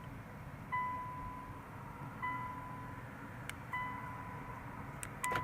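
Infiniti QX60's electronic warning chime: a single high tone that starts sharply and fades, repeating evenly about every second and a half, four times. A few faint clicks sound near the end.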